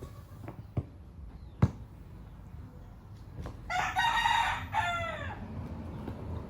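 A rooster crowing once, about four seconds in, a loud pitched call that falls in pitch at its end. A few sharp knocks come before it in the first two seconds.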